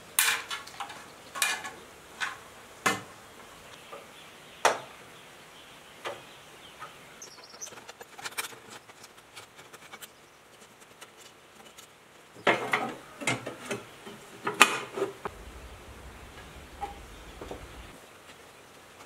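Scattered sharp metal clicks and taps from hand tools and parts on a generator's steel housing and terminal box, a handful near the start and a quick cluster about two-thirds of the way in, over a faint steady insect buzz.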